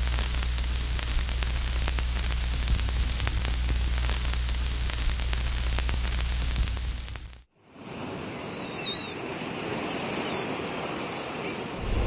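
Steady hiss over a low hum, dotted with crackling clicks, in the manner of a worn old film soundtrack. It cuts off abruptly about seven seconds in and gives way to a softer, duller rushing noise with a few faint chirps.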